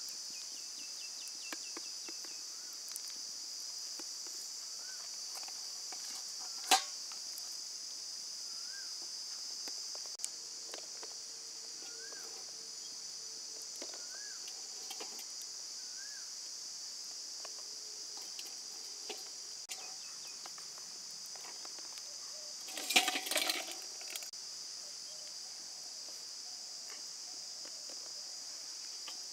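Steady high-pitched drone of insects, with faint short chirps scattered through it. A single sharp click about seven seconds in and a brief clatter of knocks around twenty-three seconds in.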